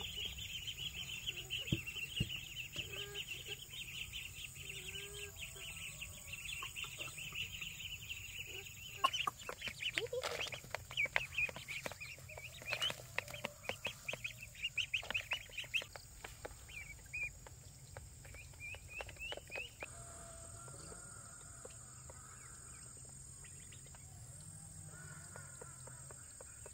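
Chickens clucking, with a run of quick sharp clicks or taps through the middle.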